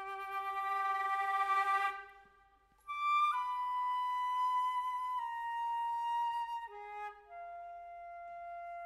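Solo flute playing long held notes: a breathy note with plenty of air noise that breaks off about two seconds in, then after a short pause a string of clear sustained notes, each held for a second or more before moving to the next pitch.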